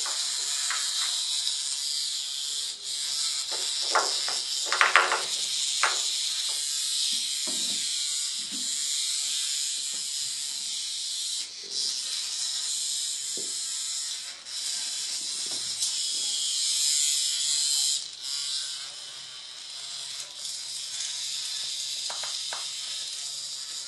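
Hexbug vibrating toy buzzing as it skitters across the tile floor, a steady high rattling hiss that cuts out briefly a few times as cats pounce on it. A few short higher-pitched sounds come about four to six seconds in.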